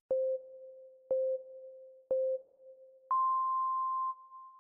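Countdown timer sound effect: three short low beeps a second apart, then one longer beep an octave higher about three seconds in, signalling go.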